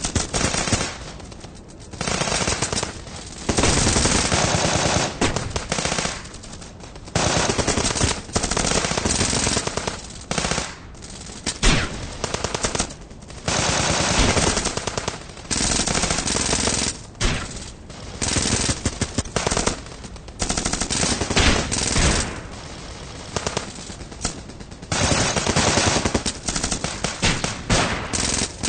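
Gun-battle sound effect: automatic weapons firing in rapid bursts one after another, with short breaks between bursts.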